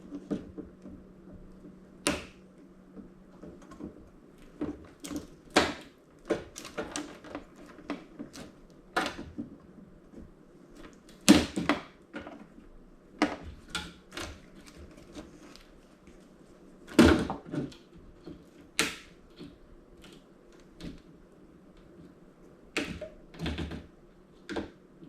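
Wire cutters snipping through wires and parts being handled inside a small flat-screen TV being scrapped: irregular sharp clicks and clacks, with a couple of louder knocks. A faint steady low hum runs underneath.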